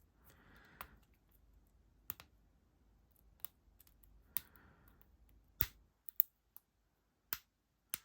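Lock pick working the pin tumblers of a cheap laminated steel padlock during single-pin picking: about ten sharp, irregular clicks, with faint scraping of the pick in the keyway twice.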